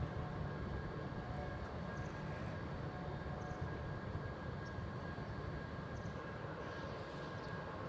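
Hokkaido Shinkansen high-speed train departing the station: a steady low rumble of running noise with faint steady tones above it, easing off slightly as it goes.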